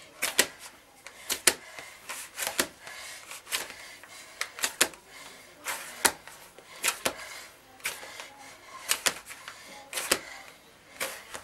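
Hands kneading gözleme dough in a plastic bowl: sharp slaps and knocks about once a second, often two close together.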